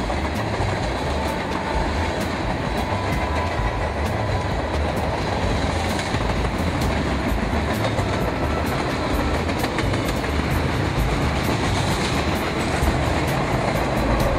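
Train rolling over track: a steady low rumble with frequent sharp clicks of wheels over rail joints.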